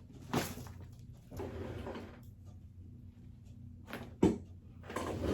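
Handling noises during a chiropractic adjustment: rustling of clothes and table padding, a few short knocks, and one sharp crack a little after four seconds in.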